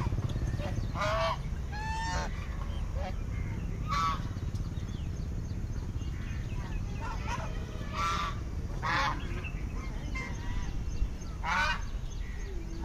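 Domestic geese honking now and then, six or seven short calls, over a steady low rumble.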